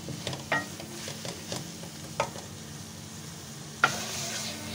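Spinach and minced meat (palak keema) sizzling as it is fried in a metal pot, with a spatula stirring through it and knocking sharply against the pot about six times, the loudest knock near the end.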